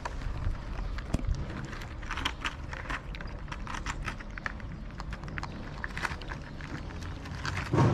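Domestic cat chewing wet food from a plastic tub close by: a run of small irregular clicks and smacks over a steady low rumble, with a louder bump near the end.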